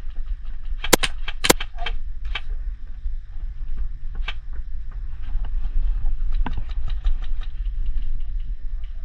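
Airsoft gunfire: two loud sharp shots about a second in, then a long run of rapid, evenly spaced shots in the second half, over a steady low rumble.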